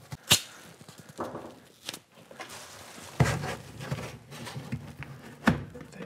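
Handling noises of cardboard and a flexible duct hose being fitted against a metal air handler cabinet to seal it for a duct leakage test: scattered rustling with a sharp click soon after the start, a thump about three seconds in and another sharp knock near the end.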